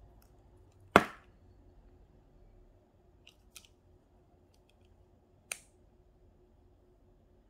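Handling clicks from a small electric nail drill handpiece and its bit: one sharp click about a second in, a few faint ticks, and another clear click about five and a half seconds in, with the motor not yet running.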